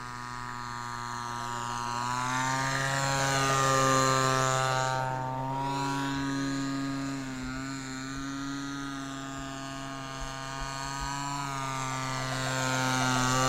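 Radio-controlled model autogyro's motor and propeller running at a steady pitch during low passes. It gets louder as the model comes close, about four seconds in and again near the end.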